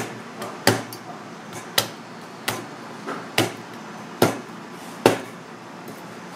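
A kitchen knife chopping at the head of a red sea bream, striking through bone onto a plastic cutting board: seven sharp knocks, a little under a second apart, over a steady low hum.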